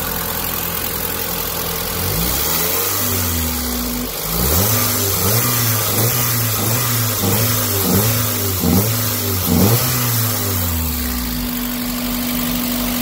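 Mazda Miata rally car's four-cylinder engine being warmed up from cold: idling, then raised to higher revs about two seconds in and blipped quickly about once a second, before dropping back to a steady idle near the end.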